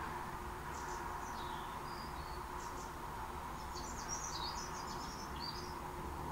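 Small birds chirping in short scattered bursts, busiest about four to five seconds in, over a steady low background hum.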